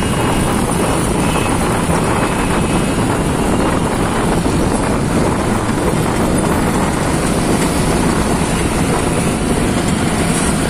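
Steady road noise from riding through city traffic in a small open vehicle: its engine running, with tyre and wind noise and passing traffic.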